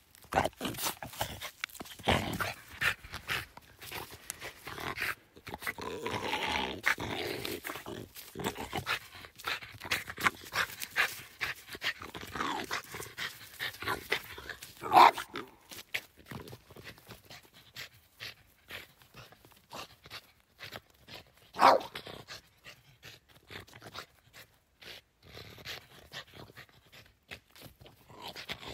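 Small black French bulldog growling during play with a stick, with two short, loud barks in the second half.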